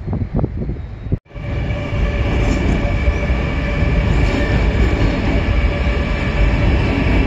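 Wind buffeting the microphone, then, after a sudden cut about a second in, a metro train running past close by: a steady, heavy rumble with a steady whine over it.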